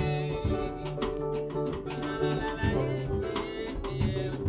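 Small live band playing an improvised jazz piece together: acoustic guitars, drum kit with regular hits over a steady bass line, and a trumpet playing the melody.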